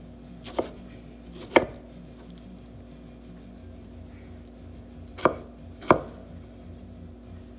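Kitchen knife chopping a tomato on a wooden cutting board: four sharp knocks of the blade on the board, a pair in the first two seconds and another pair about five to six seconds in, over a faint steady low hum.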